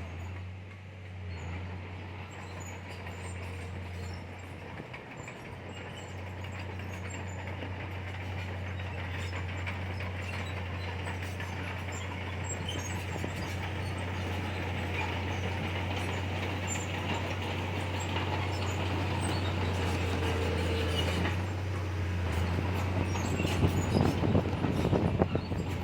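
Komatsu bulldozer working: its diesel engine drones steadily under the clatter and squeal of its steel crawler tracks, growing gradually louder, with sharper clanks near the end.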